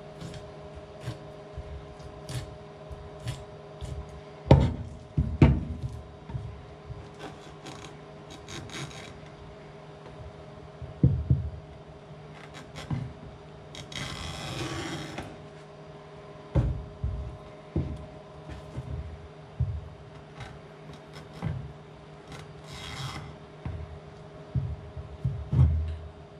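Kitchen knife working a conger eel on a wooden cutting board: scattered taps and knocks of the blade on the board, a few louder thumps, and two short scraping rasps of the blade along the fish, over a steady low hum.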